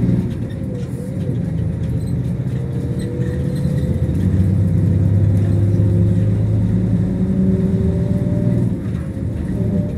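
Iveco Crossway Line Euro 6 coach heard from inside the passenger cabin while under way: a steady, loud engine and road drone with a thin whine slowly rising in pitch. The loudness dips briefly about nine seconds in.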